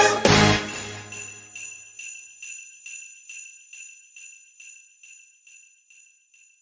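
The parade theme song's last chord, then sleigh bells shaken in an even rhythm, a little more than two shakes a second, fading out gradually to close the song.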